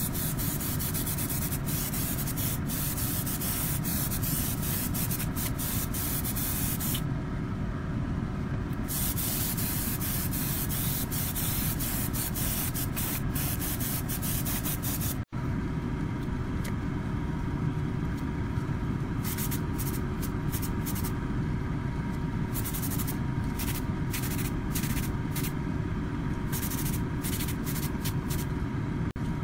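Airbrush spraying paint, a hiss that comes and goes as the trigger is worked, over a steady hum. The hiss stops for about two seconds a quarter of the way in and comes in short spurts in the second half. Everything drops out for an instant about halfway through.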